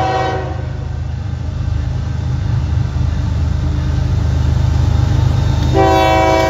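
Diesel freight locomotive's air horn: one blast ending about half a second in and another starting near the end, over the steady low rumble of the locomotive's engine as it approaches.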